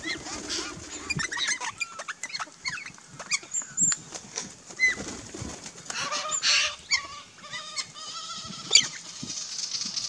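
Mixed flock of Australian backyard birds at a feeder — galahs, crimson rosellas and magpies — calling: scattered short chirps and squeaks, a run of harsh, rasping calls about six to seven and a half seconds in, and flapping wings as birds fly in and out. A single sharp tap comes near the end.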